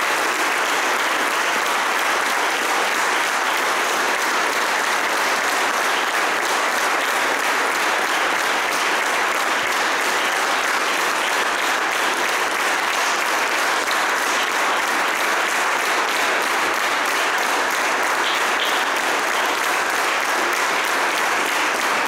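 Audience in a large hall applauding steadily and continuously.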